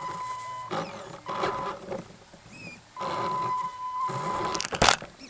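Electric drive motor of an RC truck whining at a steady high pitch, cutting out about a second in and coming back about three seconds in as the truck crawls through brush, with rustling and a sharp knock near the end.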